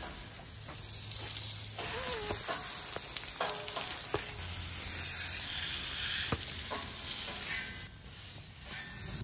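Water spraying from a hose nozzle onto a horse's wet coat: a steady hiss of spray with splattering.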